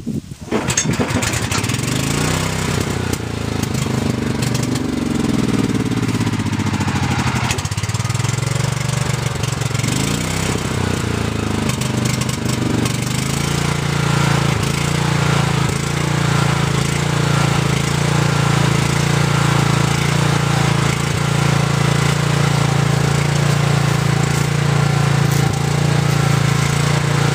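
Makita portable generator's small engine running, its speed hunting up and down for the first dozen seconds before settling into a steady run; the uneven running is typical of the faulty carburetor the owner complains of.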